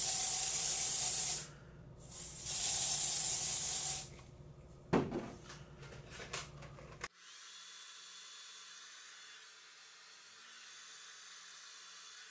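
Aerosol hairspray can sprayed in two long hisses, the first about a second and a half and the second about two seconds, followed by a sharp knock about five seconds in. Only a faint thin hiss remains through the second half.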